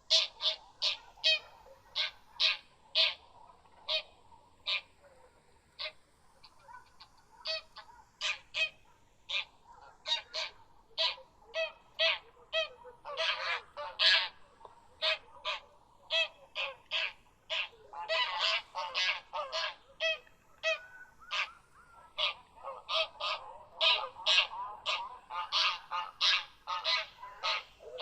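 Geese honking: a rapid series of short, separate honks, several a second, with a background of softer calls from a flock and denser overlapping bursts of honking twice.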